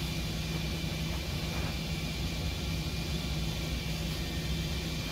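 Steady low hum with a constant pitch and a faint hiss over it.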